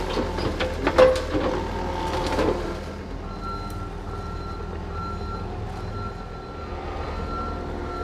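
John Deere compact track loader's diesel engine running, with sharp cracking and knocking from brush being gripped in its grapple in the first couple of seconds. From about three seconds in, its backup alarm beeps about twice a second as it reverses.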